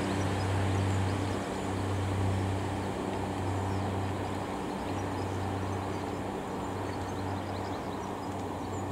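Class 143 Pacer diesel railbus pulling away, its underfloor diesel engine giving a steady low drone that slowly fades as the train moves off.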